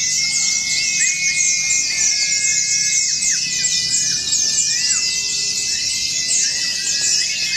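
Many white-eyes (pleci) singing at once in a dense, rapid twittering chorus, with long steady whistled notes that drop in pitch at their ends running through it.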